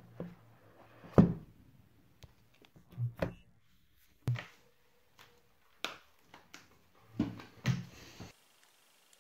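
An iPhone 14 Plus and its cardboard box being handled: a string of short knocks and thuds, the loudest about a second in, as the lid comes off and the phone is lifted out of its tray and set back in. The sound cuts off suddenly near the end.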